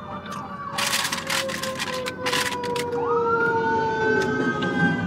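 Emergency-vehicle sirens wailing, heard from inside a car: slow falling tones from more than one siren, then a wail that rises about three seconds in and holds high. Two short bursts of close-up noise come about one and two and a half seconds in.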